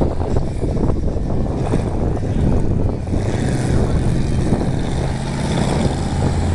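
Monster truck engine running with a low, steady drone as the truck comes down a sand mound and drives past.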